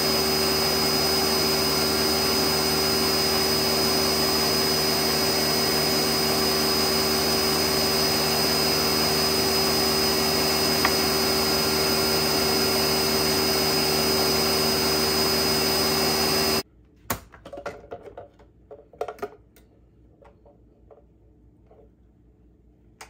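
Countertop blender motor running steadily, blending a homemade white balsamic, olive oil and honey dressing, with a steady hum under a high whine. It cuts off suddenly about two-thirds of the way through, followed by a few light knocks and clatter.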